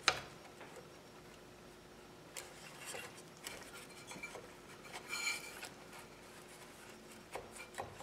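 Faint clicks and rubbing as the carburetor housing of a cut-off saw is handled and worked loose by hand, with a short rattle about five seconds in.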